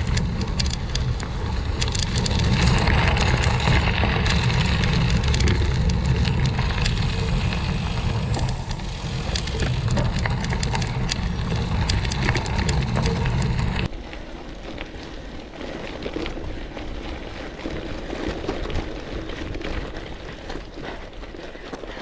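Bicycle tyres rolling over gravel, a steady crunch of small clicks, with wind buffeting the action camera's microphone. About two thirds of the way through the wind rumble cuts off suddenly and the tyre crunch goes on more quietly.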